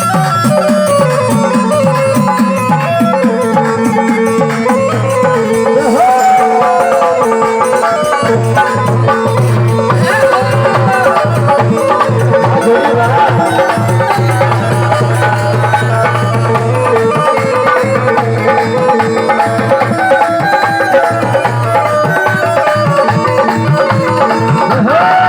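Instrumental opening music of a Hindi devotional bhajan: a steady drum rhythm under a melody instrument, with a long held bass note in the middle.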